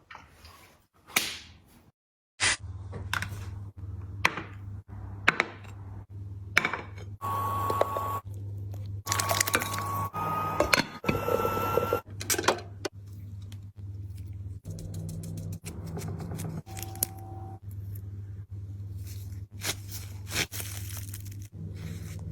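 A string of clicks and knocks, like dishes and utensils being handled, over a steady low hum. In the middle come a few short tones, each a little higher than the last.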